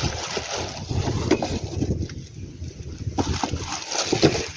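Plastic bag crinkling and rustling as it is pulled off a speaker driver, with a few light knocks from handling. There is a quieter moment about halfway through.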